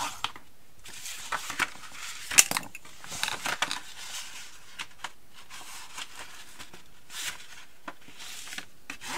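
Scored cardstock being turned and folded along its score lines while a bone folder is rubbed along the creases to burnish them: irregular paper rustles, swishes and scrapes, with one sharp tap about two and a half seconds in.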